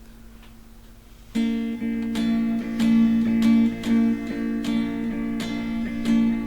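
Acoustic guitar strumming the chords of a song intro in a steady rhythm, starting about a second in after a faint hum.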